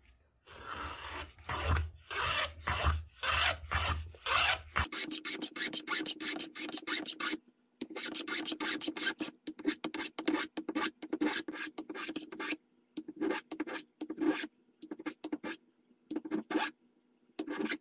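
Hand planes shaving the edges of a walnut handguard blank held in a vise: repeated rasping strokes of the blade along the wood, longer and slower at first, then shorter and quicker from about five seconds in.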